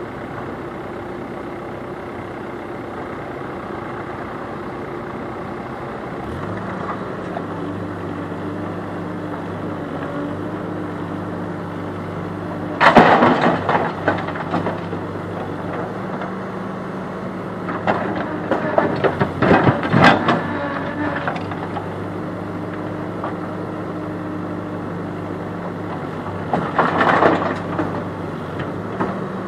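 Diesel engines of a backhoe loader and a farm tractor running steadily, with a deeper engine note joining about six seconds in. Loud clattering crashes of rocks and gravel tipped from the backhoe's bucket into the tractor's metal trailer: once a little before halfway, in a longer spell a few seconds later, and again near the end.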